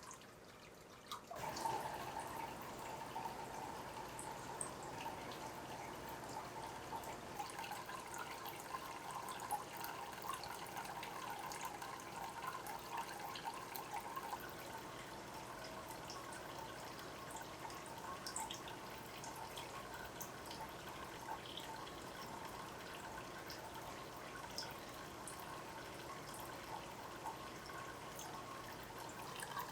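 Water trickling and splashing steadily into aquarium water, with small drips, starting a little over a second in.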